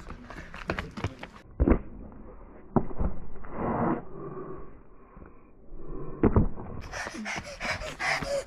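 Sneakers running on pavement, then sharp thuds as feet and hands strike a rendered wall in a jumping climb and land back on the pavement. The middle stretch sounds muffled.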